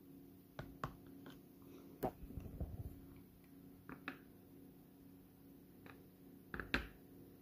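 A metal spoon knocking and scraping in a plastic pot of thick rice pudding: scattered soft taps and clicks, with a short cluster about two seconds in and the loudest double knock near the end, over a faint steady hum.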